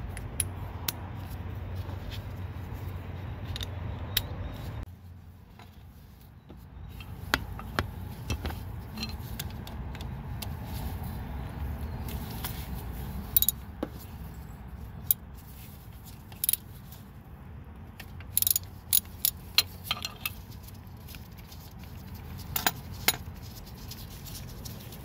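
Scattered sharp metallic clicks and clinks of a socket and ratchet being handled and worked, some in short clusters, over a steady low rumble.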